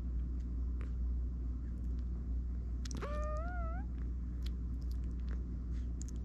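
Newborn German Shepherd puppy giving one short, thin cry about three seconds in, rising and then wavering in pitch, over a steady low hum.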